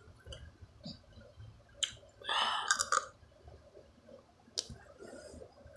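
Teeth biting and gnawing at a frozen plastic water bottle: scattered sharp clicks, and a longer crunching, scraping noise a little after two seconds in.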